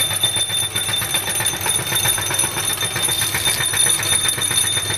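Motorised meat grinder running steadily while grinding maggots, a constant high whine over a dense, rapid rattle.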